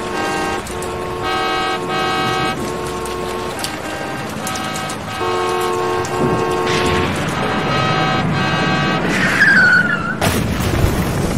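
Car horns honking in repeated long blasts, often two at once at different pitches. About nine seconds in comes a brief squeal, then near the end a sudden loud crash of thunder breaks in.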